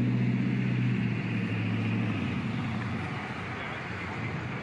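A motor vehicle engine running with a steady low hum that fades away over the second and third seconds, with indistinct voices in the background.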